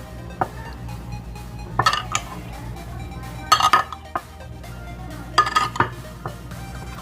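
A spoon clinking and scraping against a bowl in short clusters about every two seconds as chana chaat is tossed and mixed, over background music.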